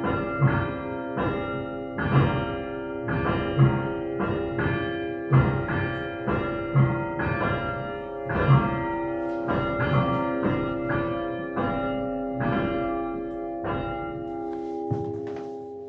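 Church bells ringing, struck about two times a second with their hum ringing on between strikes; the strikes thin out near the end.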